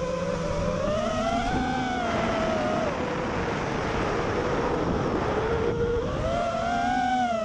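FPV freestyle drone's electric motors whining, the pitch rising and falling as the throttle changes. Through the middle the whine sinks lower under a rushing noise, then climbs again near the end.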